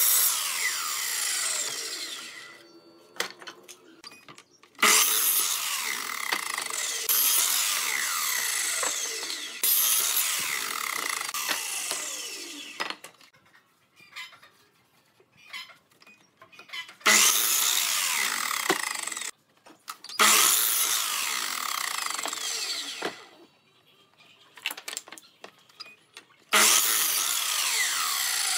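Electric sliding compound miter saw cutting pallet-wood strips to length, several cuts each a few seconds long. In each one the motor starts up, the blade rips through the pine, and a falling whine follows as the blade is let go and winds down. Small clicks and knocks of boards being shifted fill the short pauses.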